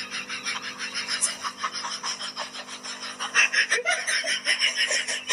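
A person laughing breathlessly in a fast, wheezing run of short pulses.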